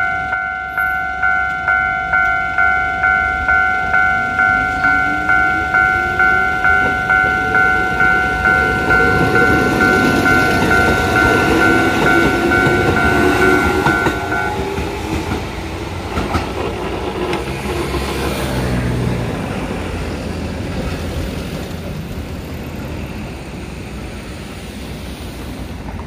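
Level-crossing warning bell ringing in a steady repeating ding, which stops about halfway through, while a Kotoden 1080-series two-car electric train pulls away and passes. Its traction motors whine, rising in pitch as it gathers speed; then the wheels clack over the rail joints and the train's sound fades as it moves off.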